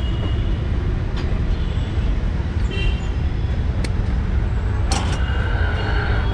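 Steady low rumble of street traffic, with a few short sharp clicks and knocks, the loudest about five seconds in.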